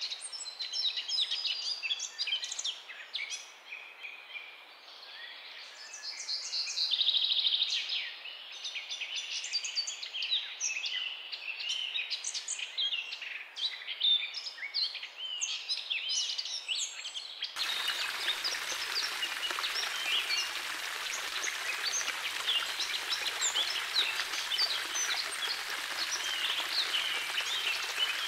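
Many small birds chirping and singing. About seventeen seconds in it changes abruptly to a steady splashing of water running through a shallow pebble-bed water feature, with birds still chirping over it.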